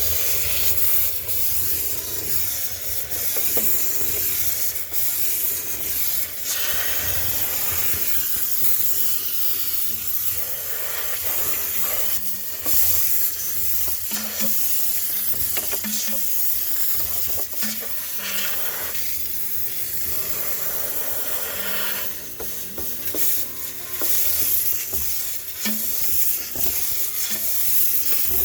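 High-pressure steam cleaner jetting steam in a steady hiss that swells and eases as the nozzle is worked over surfaces to sterilise them.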